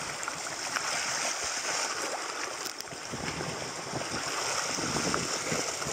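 Shallow seawater sloshing and trickling steadily over rocks at the water's edge, with a few small splashes.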